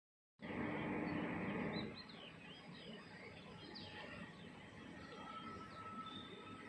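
Birds chirping and calling, short rising and falling notes, with a thin steady whistle-like note in the last couple of seconds. A louder rush of noise opens the sound for about a second and a half.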